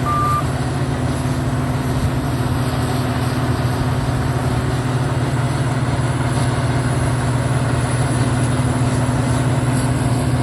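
Heavy diesel engine running steadily with a low, even hum. A reversing alarm gives one last beep right at the start.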